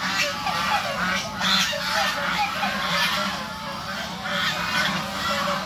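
A flock of white domestic geese honking, many calls overlapping without a break.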